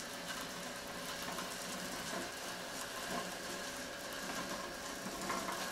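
Faint steady whir of rope running through a pulley block as a wooden chair is hauled slowly across carpet, with a few small ticks.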